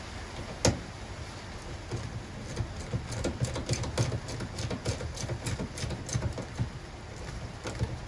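Rain pattering on a van's metal roof, with a sharp click about a second in and a quick run of irregular clicks and taps in the middle as a screw is driven by hand into a metal floor plate.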